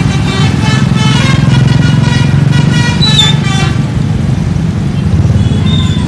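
Bus 'telolet' horn, a multi-note musical air horn, playing a short jingle of changing notes over the steady rumble of motor scooter engines. The horn tune stops about four seconds in.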